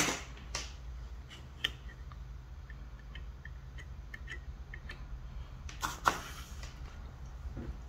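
Scattered light clicks and taps of metal handling from the helping-hand clamp holding a small LED driver board and the soldering iron working on it. A slightly louder click comes about six seconds in, over a steady low hum.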